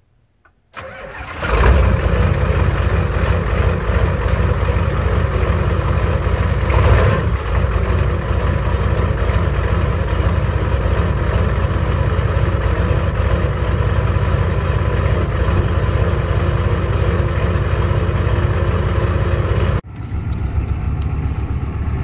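Turbocharged Ford 7.3 L IDI V8 diesel starting cold at about 0 °F after a night on the block heater, catching under a second in and then running steadily, heard from inside the cab. The sound breaks off sharply near the end and resumes.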